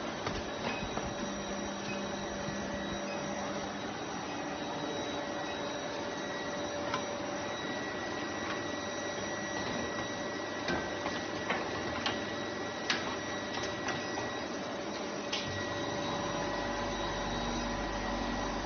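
Automatic brazing machine for diamond saw blade segments running: a steady machine hum with a high whine and scattered sharp clicks. A deeper low hum comes in near the end.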